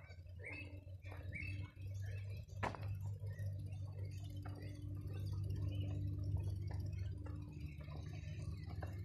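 Footsteps on a dirt track strewn with dry flood-flattened grass, roughly two a second, over a steady low hum.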